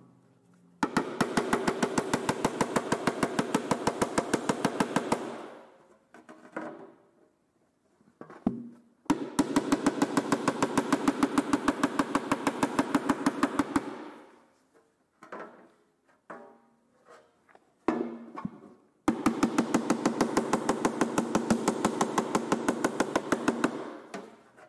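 Domed mallet beating an aluminium body panel on a sandbag to raise its low spots. The blows come in quick, even runs of several strikes a second, each run lasting about four to five seconds, with the sheet ringing under them. Three runs are separated by a few scattered knocks.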